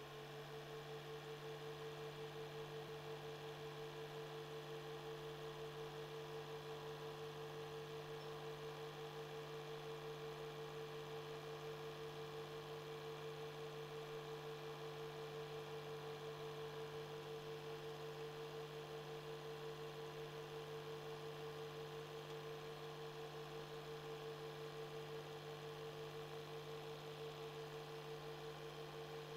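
8mm film projector running steadily: a constant motor hum with a higher steady tone above it and a slight even pulsing.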